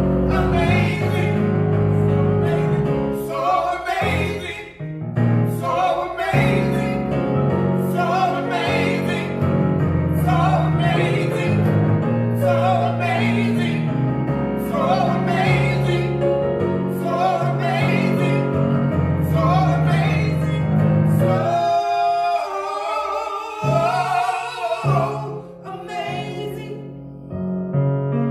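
Gospel song: a woman singing over sustained piano-like chords from a Yamaha MOXF synthesizer keyboard. Near the end the chords fall away for a few seconds, leaving her voice nearly alone before they return.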